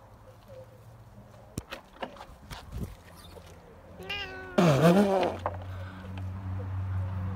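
Domestic cat meowing close by: a short call about four seconds in runs straight into one long, loud meow that dips in pitch and rises again.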